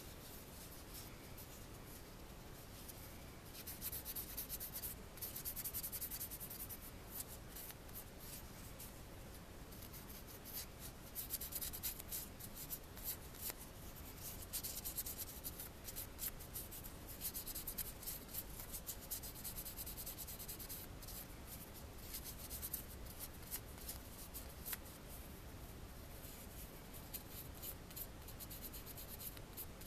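Polishing pad rubbed over a copper ring darkened with liver of sulfur, in many quick scratchy strokes that begin a few seconds in. The rubbing buffs the dark patina off the raised surfaces to give the antiqued look.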